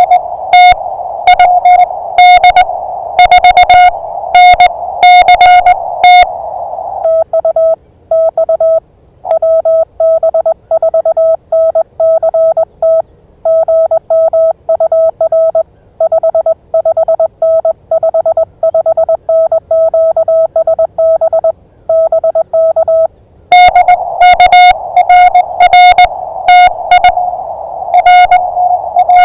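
Morse code (CW) from an amateur radio transceiver. For the first six seconds and again from about 23 seconds in, a loud keyed sidetone sends dots and dashes. In between, for about sixteen seconds, a slightly lower-pitched Morse signal comes back from another station over a steady receiver hiss.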